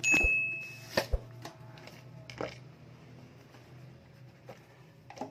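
A cardboard phone box being handled and opened by hand, giving a few sharp taps and clicks, the first about a second in and another near the middle. At the very start a brief high beep-like tone sounds for just under a second, the loudest thing here.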